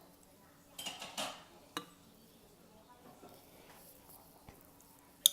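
Eating utensils clinking against a bowl of ramen: a short rustling noise about a second in, a click just before two seconds, and a sharp, loud clink near the end.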